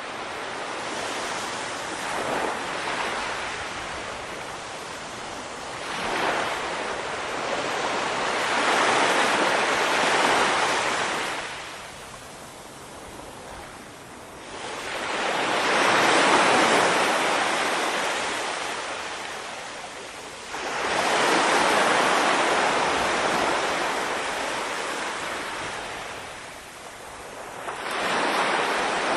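Small Mediterranean wavelets lapping and breaking on a sandy beach, each wash swelling and fading away about every five or six seconds.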